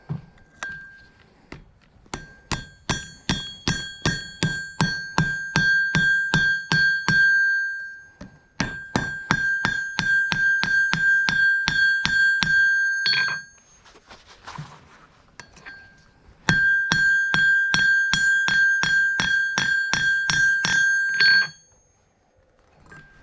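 Blacksmith's hammer striking hot steel on an anvil in quick runs of about four blows a second, each blow leaving a bright, steady anvil ring. The hammering stops and restarts twice.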